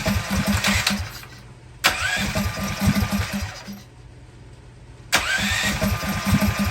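Small mini bike engine being pull-started on its recoil starter: three hard pulls, each a rising whirr with quick cranking pulses, and it does not catch and run. The fuel isn't getting all the way through the fuel line to the engine.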